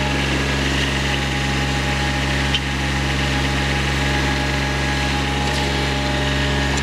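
Toro Greensmaster 3250-D riding greens mower's diesel engine running at a steady speed as the mower drives across the lawn, with one brief click about two and a half seconds in.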